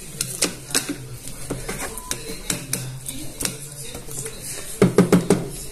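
Thermomix spatula scraping and knocking against the stainless-steel mixing bowl as the onions and oil are pushed down: a run of irregular clicks, with a louder cluster of knocks near the end.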